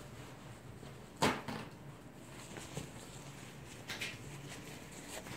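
A sharp knock about a second in and a fainter knock near four seconds, over low room noise.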